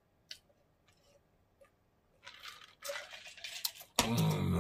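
A man drinking from a plastic cup, with a few faint clicks and then soft swallowing and mouth sounds. About four seconds in comes a loud, wordless voiced sound.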